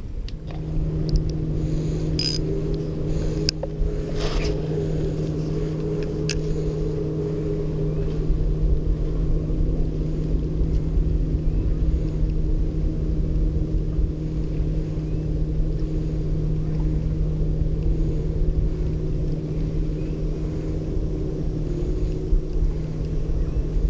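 A steady low motor hum with wind rumbling on the microphone, and a few sharp handling clicks about two to four seconds in.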